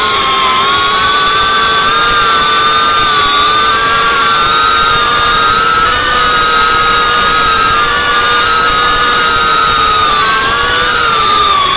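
Brushless motors and propellers of a GEPRC Cinelog 35 ducted FPV cinewhoop drone, a steady high whine whose pitch wavers slightly with throttle and dips near the end.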